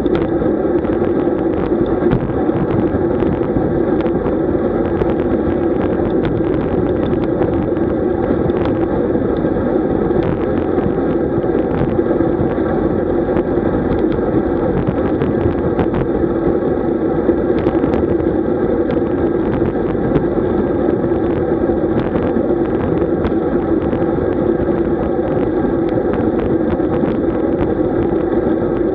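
Steady rush of wind and road noise from a road bike moving along, with scattered small ticks throughout.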